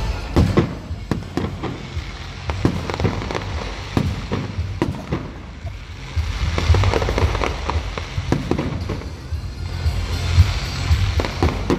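A fireworks display: aerial shells bursting in a rapid, uneven series of bangs, with crackling in between. Music plays underneath.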